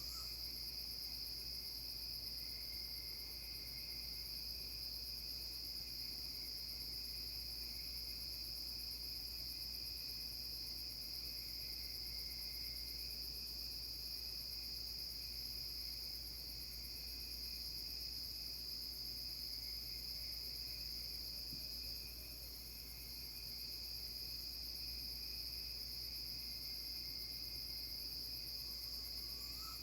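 Steady night chorus of crickets and other insects, a continuous high trilling with no let-up. Right at the end a faint short rising whistle comes through.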